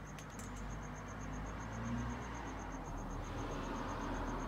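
A cricket chirping steadily, a high pulsed note repeating about six times a second, over a low background hum. A soft breathy rush of a cigar smoker exhaling swells in about three seconds in.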